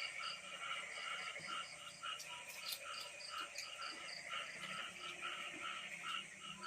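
A night chorus of frogs and insects: steady, even pulses of calling, about three a second.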